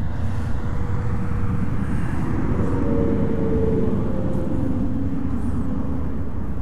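Wind buffeting the microphone as a steady low rumble, with a faint engine drone swelling and fading in the middle.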